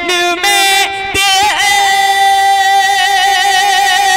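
A man singing a naat, an Urdu devotional poem, in a high voice. Two short ornamented phrases are followed, about a second in, by one long steady held note.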